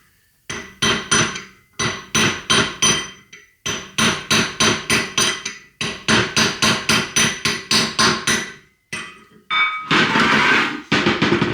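Hammer driving a steel drift against the tabs of a hub lock washer: runs of ringing metal-on-metal strikes, about three to four a second, with short pauses between runs, bending the washer ears up to lock the nut.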